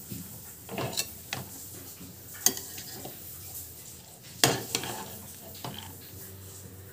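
A spoon scraping and clinking against a pan while cooked mint leaves are scooped into a mixer-grinder jar: a few scattered knocks, the sharpest about two and a half and four and a half seconds in.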